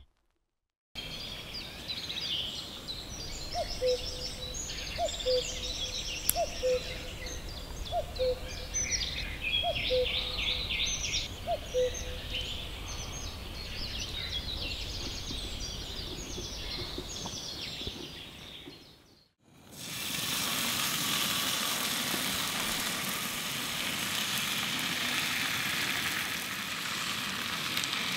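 Birds singing, with a lower short call repeated about six times, each a second or two apart. After a brief break about two-thirds of the way in, bacon and eggs sizzle steadily in a pan on a gas camping stove.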